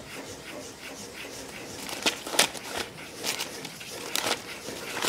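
Ballpoint pen scribbling hard back and forth on a sheet of paper on a table: a run of scratchy strokes, with the loudest ones about two seconds in and again a little after four seconds. It is a test scribble to see whether the pen still writes.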